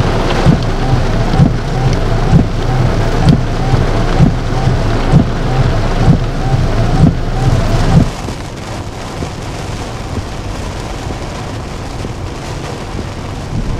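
Heavy rain on a car, with a regular knock about once a second. About eight seconds in, it cuts to a quieter, steady rush of rain while driving.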